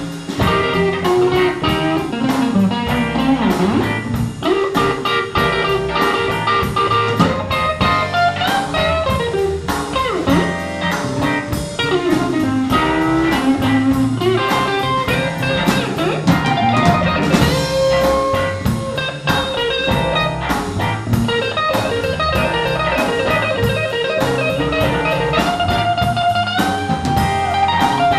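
Live blues band playing an instrumental passage with no singing: electric guitars, bass guitar and drum kit, with a lead guitar line of bent, sliding notes.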